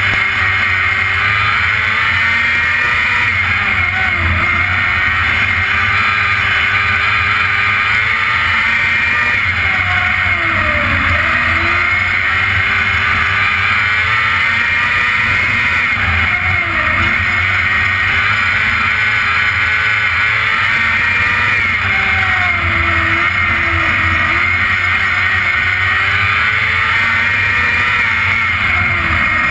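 Sprint car engine heard from the onboard camera, running at high revs on a dirt oval. Its pitch dips briefly and climbs back about every six seconds as the driver lifts for each turn and gets back on the throttle.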